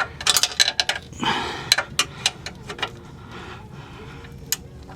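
Socket ratchet clicking in quick irregular strokes as a 12 mm bolt is loosened, busy for the first three seconds, with one last click near the end.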